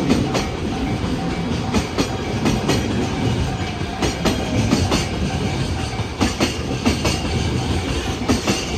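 Freight train rolling past over jointed rail: a steady rumble of wheels on track, with loud clacks as the wheelsets strike the rail joints. The clacks come in quick pairs about every two seconds.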